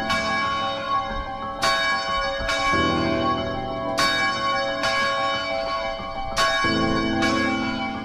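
Rope-rung church bell swinging in an open steel tower, its clapper striking seven times in pairs, each strike ringing on into the next. It is the bell rung before a service to call people to worship.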